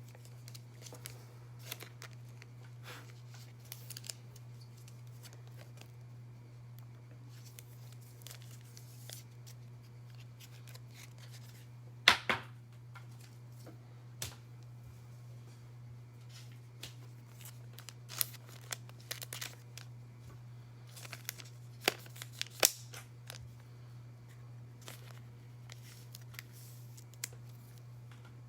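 Trading card packs being opened and handled: scattered crinkles, clicks and snaps of wrappers and cards, sharpest about twelve seconds in and again around twenty-two seconds, over a steady low hum.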